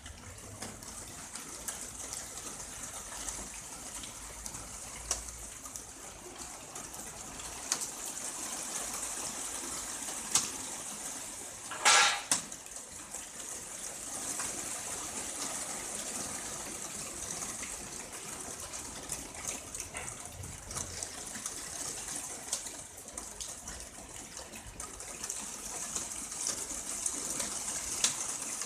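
Very fine rain falling: a steady high hiss dotted with tiny drip ticks. About twelve seconds in comes one short, louder burst.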